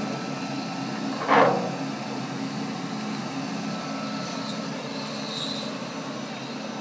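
Monarch 60-inch T-lathe (model T-48) running at high spindle speed with a steady, even hum and no gear noise. A single brief knock comes about a second and a half in.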